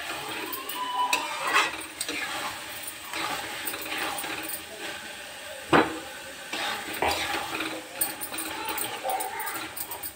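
Metal spatula stirring and scraping grated-carrot halwa in a steel kadhai as it cooks in ghee, with irregular scrapes and knocks against the pan; the loudest knock comes about six seconds in.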